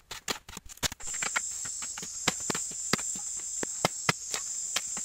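Hand tools chipping and striking at hard, dry earth: a quick, irregular series of sharp knocks several times a second. About a second in, a high, steady insect drone starts up behind the knocks.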